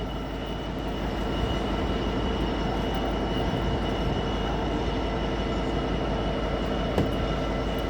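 Class 350 electric multiple unit running through the station: a steady rumble with a few steady tones over it, and one sharp click about seven seconds in.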